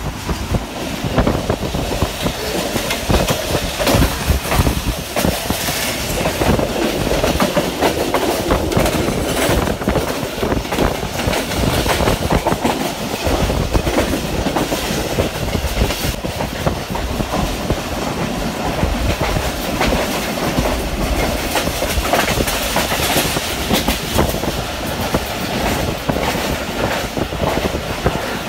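Rehman Baba Express passenger train running at speed, its wheels clattering over the rail joints without a break against a steady rush of noise, heard from a carriage window.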